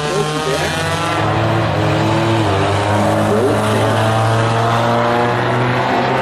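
Engines of several compact tuner-class race cars running at speed around a short oval track, their pitches overlapping and shifting up and down.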